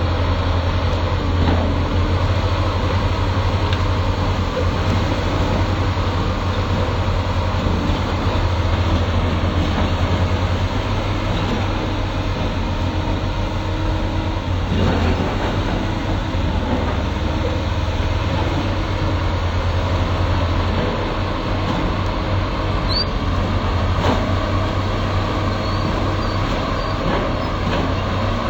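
Excavator's diesel engine running steadily, a constant low drone under a busy mechanical rumble, with a few faint knocks.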